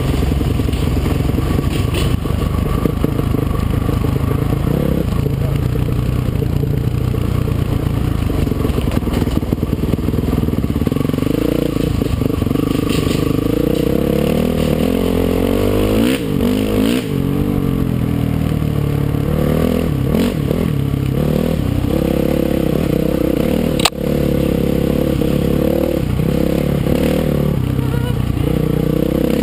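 Dirt bike engine running under load on a rocky trail, its pitch rising and falling with the throttle, with stones clattering and scraping under the tyres. One sharp knock late on.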